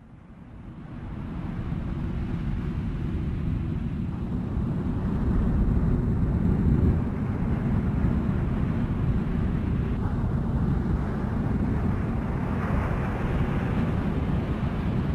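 Wind howling up a cliff, heard as a steady low rush of noise that fades in over the first two seconds. It is wind, not tape noise.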